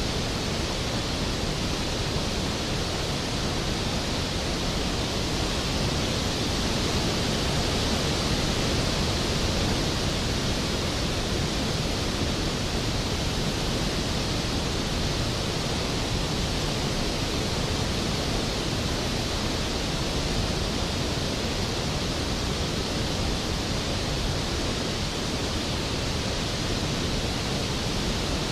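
Skógafoss waterfall: a large waterfall plunging into its pool, a steady, unbroken rush of falling water.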